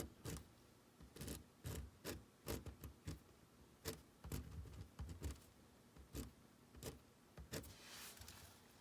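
Faint, irregular clicks and taps of a pen writing, about two a second, with a soft rustle near the end.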